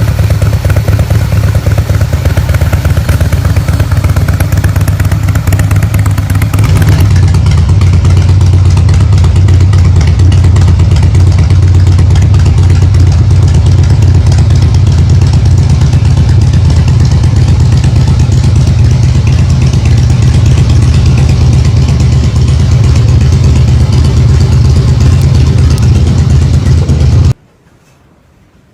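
Harley-Davidson Breakout's V-twin engine running steadily through its exhaust at an even, idle-like speed, then cutting off abruptly near the end.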